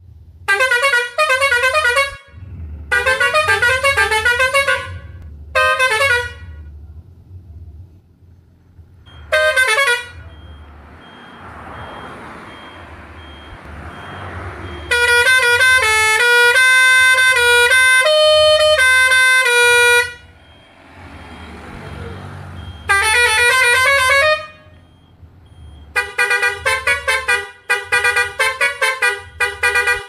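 A bus's musical horn playing short melodic phrases in repeated blasts, with one longer tune of stepping notes for about five seconds in the middle. A low steady rumble runs underneath.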